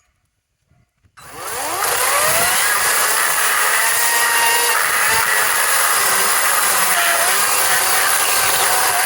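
Ego 18-inch cordless electric chainsaw starting up about a second in, its motor spinning up with a rising whine, then running steadily and loudly as the chain cuts into wood under load.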